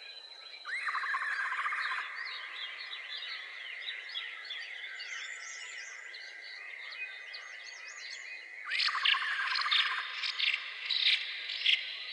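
Many small birds chirping over a steady high insect drone. A fast pulsing trill of about a second comes in near the start and again about nine seconds in, followed by a run of louder, sharper calls.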